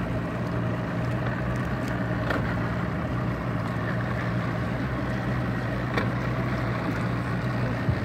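Boat outboard motor idling steadily, with water and wind noise around it.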